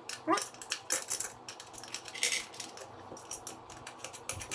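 Small steel nuts clinking and clicking as they are picked up and threaded by hand onto the studs of a Vespa split-rim wheel.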